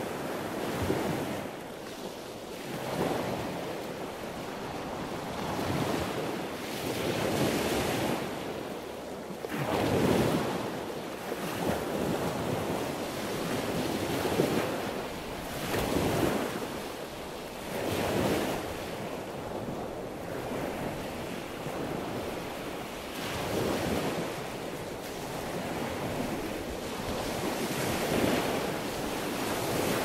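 Sea waves washing in and breaking, the surf rising and falling in irregular surges every second or two.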